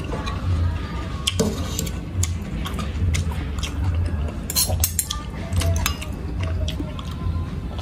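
Metal spoon and fork clinking and scraping against a ceramic plate of rice, a string of separate sharp clinks.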